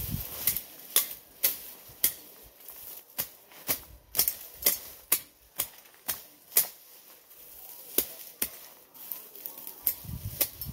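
Machete cutting through grass and weeds close to the ground: sharp slicing strikes about twice a second, with a short pause near the end.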